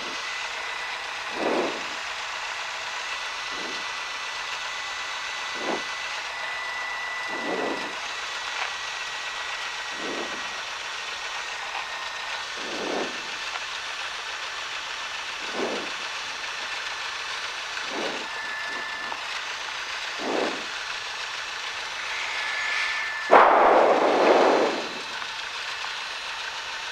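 Cessna 172's engine idling as the plane taxis, heard inside the cabin as a steady hiss. A dull thump comes about every two seconds, and a louder rumble lasts a couple of seconds near the end.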